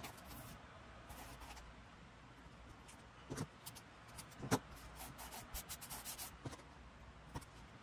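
Paper and craft tools being handled on a work table: light rubbing and scratching, with a scatter of small taps and knocks, the loudest a little past halfway.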